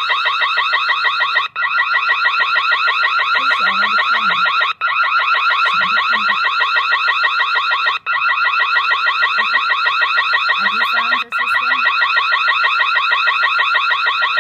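GSM/Wi-Fi home alarm system's siren sounding after an alarm sensor is triggered: a loud, fast-warbling electronic tone that breaks off for a split second about every three seconds.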